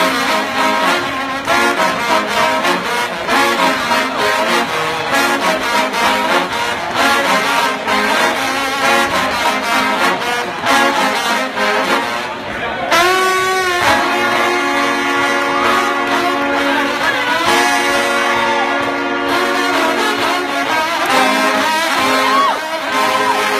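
Trombone played with unusual effects: a run of sustained notes that waver and bend in pitch, with a swooping bend about thirteen seconds in.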